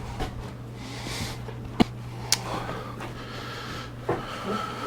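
A steady low hum with faint handling noises and two sharp clicks a little under and a little over two seconds in, as small objects are picked up and set down on a workbench.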